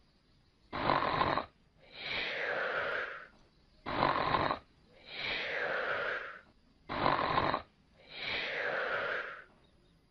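Snoring, three slow breaths about three seconds apart: each a short harsh intake followed by a longer breath out that falls in pitch.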